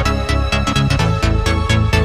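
Background electronic dance music with a steady, fast beat and a pulsing bass line.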